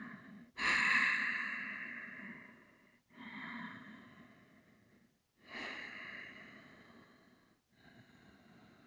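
Slow, steady breathing in and out through the nose, close to the microphone: four long breaths, each fading away before the next, the first the loudest.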